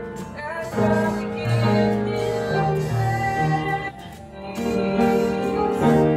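A woman singing a slow Christmas song while accompanying herself on an upright piano, with a short pause for breath a little past halfway.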